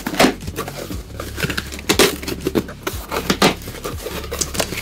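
Packing tape ripped off a cardboard shipping box and the cardboard flaps pulled open: a run of crackling tears and scrapes, with several louder rips.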